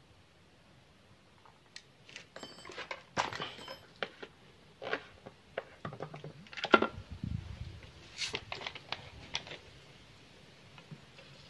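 Scattered clicks, taps and clatters of hands and tools handling a chainsaw, with one louder knock and dull thud about seven seconds in.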